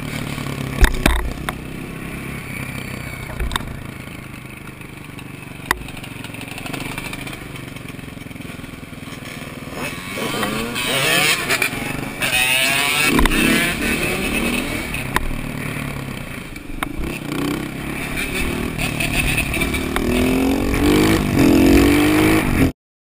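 Motorcycle engine running while riding in city traffic, with the revs rising and falling about halfway through and again near the end. A few sharp clicks in the first few seconds. The sound cuts off abruptly just before the end.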